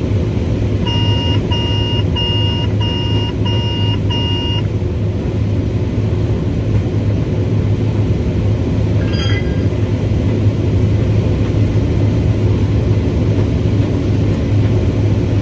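Combine harvester running, heard from inside the cab as a steady low drone. About a second in, a cab alarm sounds six quick, evenly spaced beeps, and a short electronic chirp follows near the middle. This comes as the grain tank is being unloaded.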